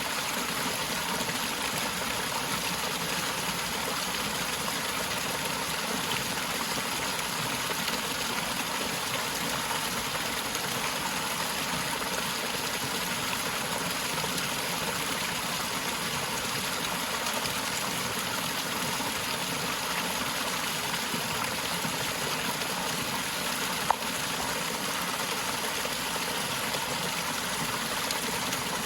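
Forest waterfall: a steady, unbroken rush of falling and splashing water. A single sharp click sounds once, late on.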